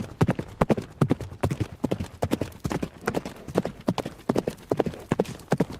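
Horse galloping: hoofbeats fall in quick uneven groups that repeat steadily, about two groups a second.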